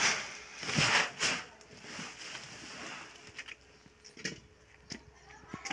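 Woven plastic sack rustling as it is lifted and shaken out, two bursts in the first second and a half, then a few light knocks.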